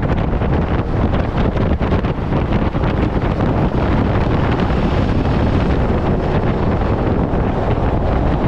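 Strong wind buffeting the microphone: a loud, steady rumbling rush with no pause.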